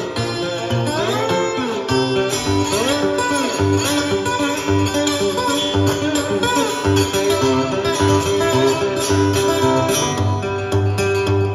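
Steel-string acoustic guitar played fingerstyle with a slide: a busy picked pattern with a steady bass, and slide notes gliding up and back down in the first few seconds.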